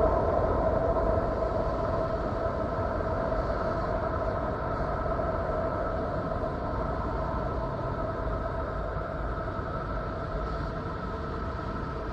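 Spacecraft data made audible as a 'space sound': a steady rumbling hiss with several droning tones, slowly getting quieter.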